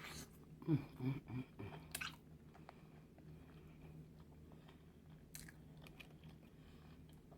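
Close-miked chewing of a bite of boiled egg, soft and wet, with a few mouth clicks and a short hummed "mm" about a second in.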